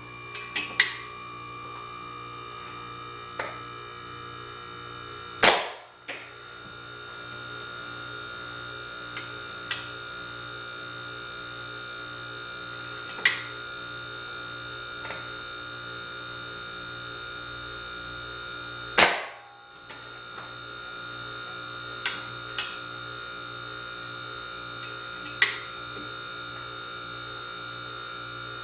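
Homemade .177 smooth-bore air rifle with a solenoid valve and a 150 psi air chamber firing twice, each shot a single sharp, loud pop, about 13 seconds apart. Lighter clicks come between the shots, over a steady electrical hum with a high whine.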